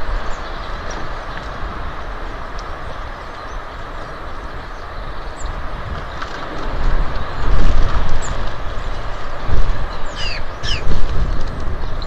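Outdoor feeder ambience: a steady hiss with low wind rumbles on the microphone that grow stronger in the second half, and small birds chirping high, with two falling calls near the end.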